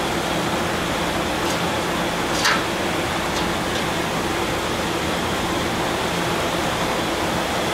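Steady, even rushing noise, with a short metallic clink about two and a half seconds in and a few fainter ticks, as raw chickens on metal skewers are hung inside a steel drum oven.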